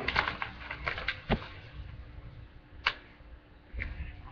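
A sheet of paper being folded and pressed by hand: crinkling and crackling, thick for the first second and a half, then a few single sharp crackles.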